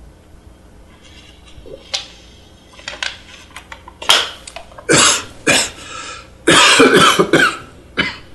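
A man coughing hard in a fit of about five coughs, starting about four seconds in, after swallowing a pill with water. A few small clicks come first.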